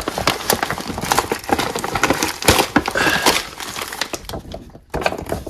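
A heavy plastic ration bag is tipped and shaken out. Its plastic-wrapped packets crinkle and clatter as they tumble out in a dense run of crackles and clicks.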